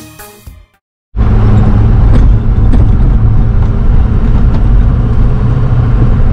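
Music fades out, and after a brief silence a truck is heard from inside its cab driving over a sandy dirt track: a loud, steady low rumble of engine and tyres with light knocks and rattles.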